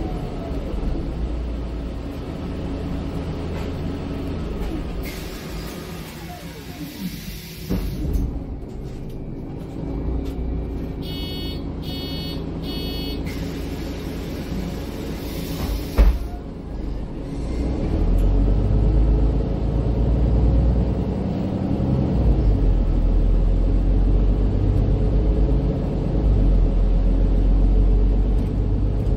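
Inside a MAN Lion's City 12C EfficientHybrid city bus stopping and pulling away: the drivetrain runs down as the bus slows, there is a hiss of compressed air, three short beeps about halfway through, another hiss and a thud, and then the diesel engine's rumble builds as the bus accelerates off.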